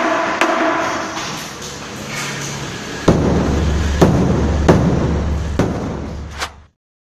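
Bedug, a large hide-headed mosque drum, struck with a beater. In the first few seconds there are lighter knocks with a ringing tone, then about five deep strokes, each ringing on into the next. The sound cuts off suddenly near the end.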